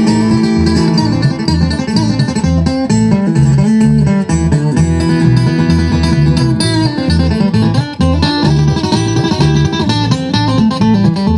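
Live bluegrass band playing an instrumental break between verses: picked acoustic strings over a steady, repeating bass line, with no singing.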